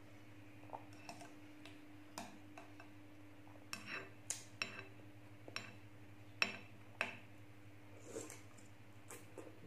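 Metal spoon clinking against a glass bowl while scooping pieces of cucumber in sweetened milk, with mouth sounds of eating: a dozen or so sharp clicks, the loudest bunched in the middle. A steady low hum runs underneath.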